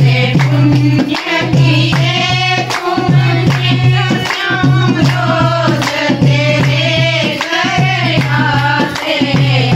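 Group of women singing a folk song together, with hand-clapping and a dholak drum keeping a steady beat.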